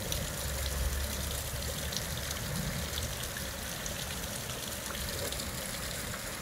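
Steady rain falling on wet pavement and parked cars: an even hiss with faint scattered drop ticks. A low rumble runs from about half a second to a second and a half in.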